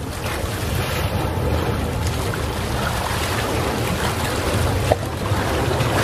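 Calm sea waves washing on a shore, a steady hiss with a slight swell toward the end. Wind on the microphone adds a low rumble underneath. There is one brief sharp tick near the end.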